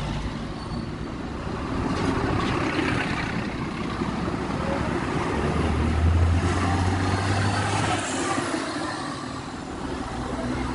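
Street traffic noise from motor vehicles. A low engine rumble from a passing vehicle is loudest about six to eight seconds in.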